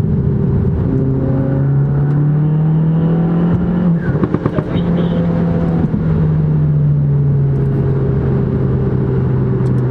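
Volkswagen Mk7 GTI's tuned turbocharged 2.0-litre four-cylinder heard from inside the cabin, its note rising under throttle. About four seconds in it breaks into a quick rattle of exhaust cracks, the pops of its 'gunshot' tune, then carries on as a steady drone that slowly falls in pitch.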